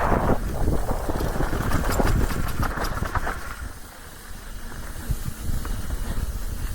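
Wind buffeting the action-camera microphone as a Trek Slash full-suspension mountain bike rolls down a dirt trail, with a steady low rumble of tyres and frequent clicks and rattles from the bike. The noise eases for a moment about four seconds in, then picks up again.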